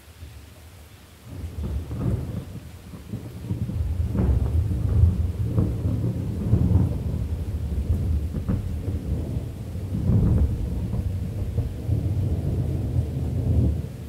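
Thunderstorm ambience: a long roll of thunder rumbling deep and uneven over a faint steady hiss of rain. The rumble builds about a second in, swells several times, and falls away near the end.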